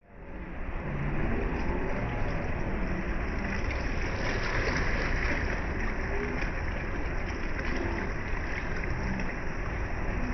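Small waves lapping and washing onto a sandy beach: a steady rushing wash with a low rumble underneath, fading in over the first second.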